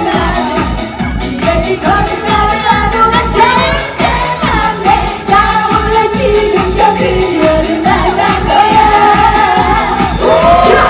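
Live pop band performance: singing over amplified band with a steady beat.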